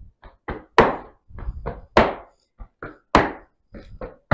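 Heavy boots stepping and stamping on a tiled floor in a folk dance step. The pattern repeats evenly: two light taps, then a heavy stamp, about once a second.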